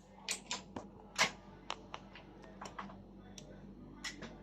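Small hand tools clicking and tapping as tiny phone parts are handled at a repair bench: about a dozen sharp, irregular clicks over a faint steady hum.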